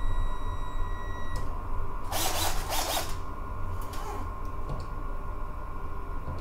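Cordless drill-driver running briefly as it drives a screw into a ceiling-mounted camera base: a steady motor whine that stops about a second and a half in. A short burst of noise follows about two seconds in, then a few light clicks.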